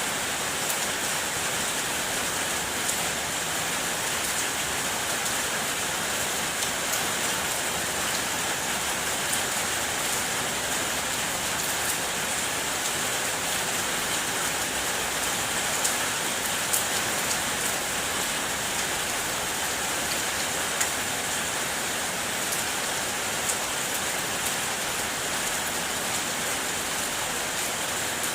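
Steady rain drumming on a car's body, a dense even hiss with many small sharp taps of individual drops.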